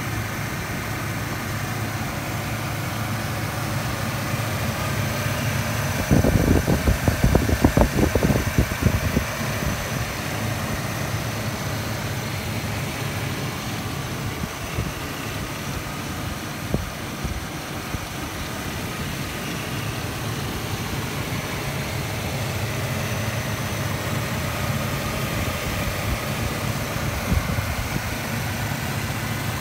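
2002 Chevrolet S-10's 4.3-litre Vortec V6 idling steadily. From about six to nine seconds in, a stretch of irregular low buffeting is the loudest part.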